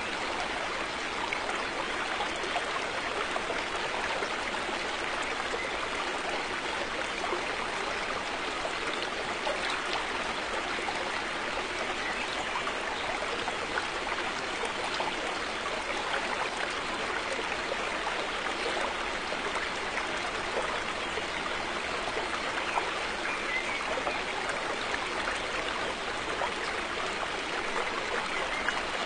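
River water flowing steadily over stones, an even rushing and trickling with no change throughout.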